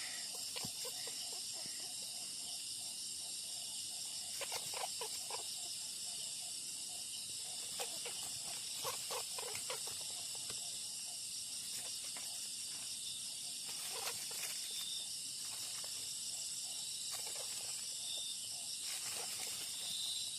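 Steady high-pitched chorus of insects in the countryside, with short scattered calls of wild birds now and then.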